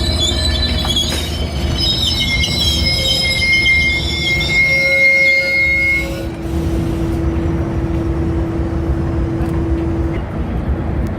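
Railroad cars rolling past with a steady low rumble, their steel wheels squealing high-pitched against the rails. The squeal fades out about six seconds in.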